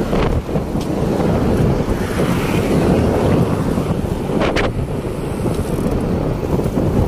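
Heavy wind rushing over the microphone of a camera on a moving bicycle, a steady, buffeting noise with no pauses. Two short clicks come close together about four and a half seconds in.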